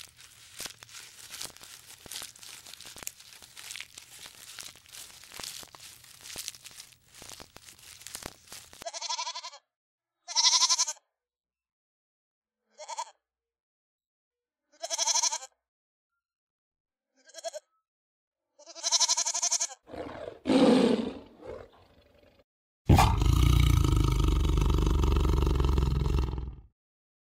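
Crackling and tearing of leaves and twigs while a giraffe browses a tree. Then goats bleat in about six short calls, followed by one call that falls in pitch. Near the end comes a loud big-cat roar lasting about four seconds.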